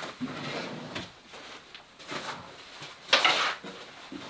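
Wooden drawer on metal ball-bearing slides being pulled open and a fabric stuff sack put into it: a few soft handling noises, and the loudest, a brief bright noise about three seconds in.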